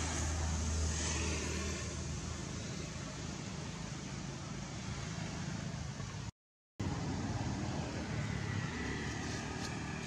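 Steady outdoor background noise: a low rumble under an even hiss. It cuts to silence for about half a second some six seconds in, then resumes.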